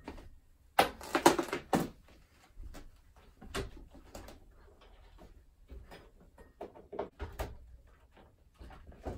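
Knocks, clicks and rattles from objects being handled, as when computer hardware and cables are moved. The loudest cluster of knocks comes about a second in, and scattered lighter clicks follow.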